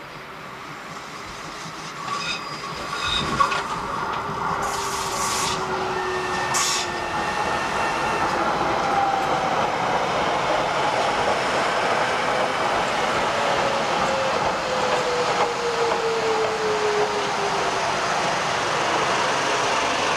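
A Docklands Light Railway train approaching on a curve and running past close by, growing louder as it nears. Wheels squeal on the curve, there are two short hisses about five and seven seconds in, and a motor whine slowly falls in pitch.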